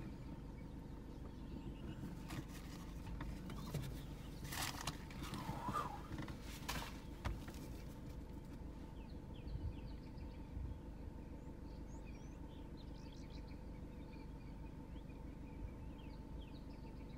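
Steady low hum of an idling vehicle, with a few sharp crackles between about two and seven seconds in and small birds chirping through the second half.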